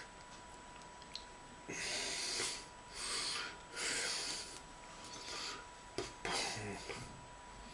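A man's breath, about five short noisy puffs and exhalations through nose and mouth, with a faint steady high tone underneath.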